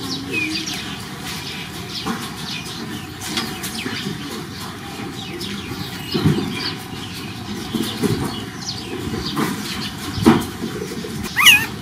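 Newborn puppies squeaking faintly now and then in short, high chirps. A few soft knocks and rustles in the grass come through, the loudest about six and ten seconds in.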